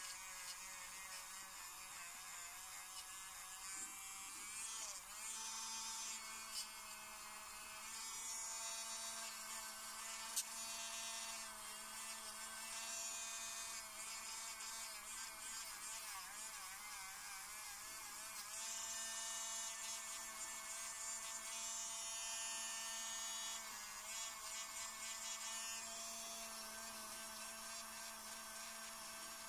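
Electric manicure nail drill running steadily with a pink cone-shaped bit against the nail at the cuticle, a faint high whine that dips briefly in pitch a few times as the bit is pressed on, with a light grinding hiss.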